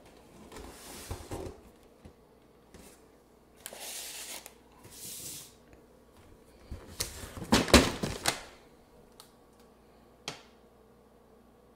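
Handling noise from a cardboard fireworks box being moved and turned over on a wooden table: several bursts of rustling with knocks and clicks. The loudest knocks come about eight seconds in, and there is a single click near the end.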